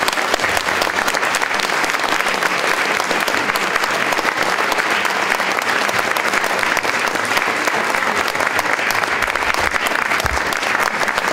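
An audience applauding steadily after a lecture: the dense, even clatter of many hands clapping in a large hall.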